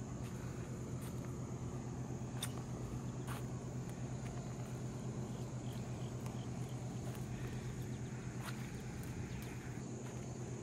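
Steady chirring of insects over a low, steady hum, with a few faint clicks.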